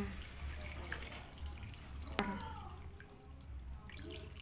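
Water pouring in a steady stream from a jug into a wok of raw chicken pieces and spice paste, splashing as the pan fills. One sharp clink about two seconds in.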